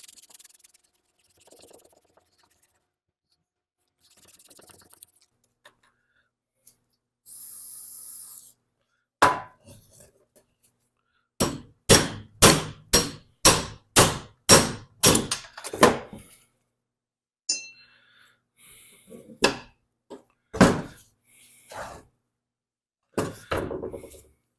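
Hammer blows on metal while working the lawnmower blade spindle apart. A short hiss comes first, then a steady run of about ten sharp strikes, roughly two a second, and a few more scattered knocks near the end.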